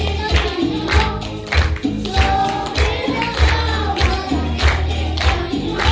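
Upbeat Christian worship song: group singing over a steady bass beat and percussion.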